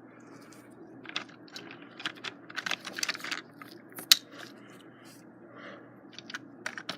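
Scattered small clicks and taps of a plastic toy train engine and its packaging being handled with latex-gloved hands, the sharpest click about four seconds in.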